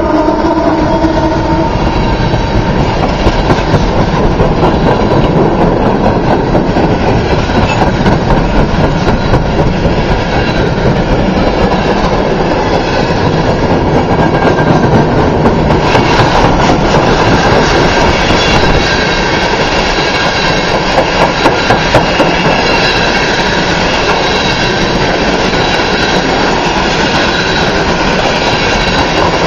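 Freight cars of a unit coal train rolling past, their wheels clattering over the rail joints, with thin steel-wheel squeal through the second half. A locomotive horn's chord ends in the first second or two.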